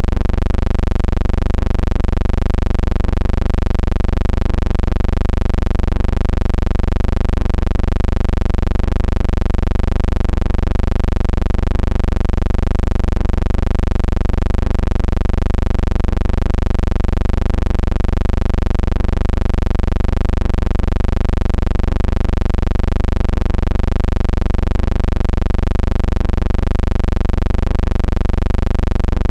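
Steady, loud low hum with many overtones that waver slowly and regularly in pitch.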